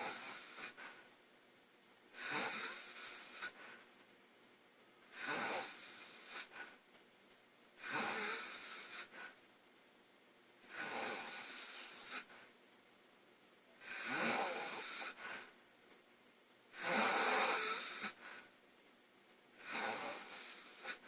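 A woman snoring loudly in her sleep, one breathy snore about every three seconds, each lasting a second or so.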